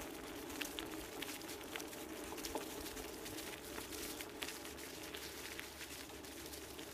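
Alpha Diggler dog scooter's wheels rolling over a leaf-covered dirt track: a steady rolling noise with many small crackles and ticks.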